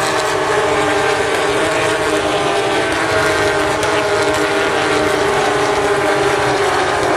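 Porsche 911 GT3 Cup race cars at racing speed past the track, their flat-six engines running loud. Several engine notes overlap, their pitch drifting up and down as the cars go by.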